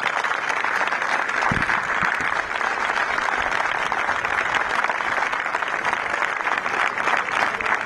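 Crowd applauding, dense and steady clapping from many hands.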